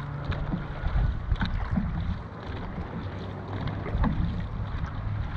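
Dragon boat paddles pulling through the water, with a few sharp splashes at uneven intervals over a low rumble of wind on the microphone.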